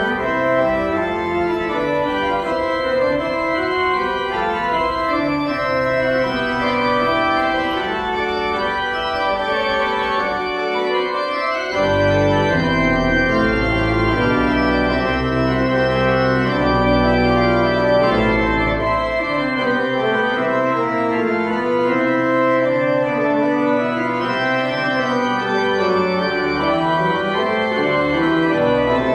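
Church organ playing the postlude at the close of the service, in sustained, changing chords. Deep bass notes come in about halfway through, and the music gets a little louder.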